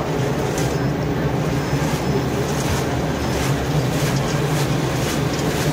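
Caramel popcorn coating kettle running, its motor-driven stirring paddle turning popcorn through the caramel: a steady mechanical drone with faint light clicks over it.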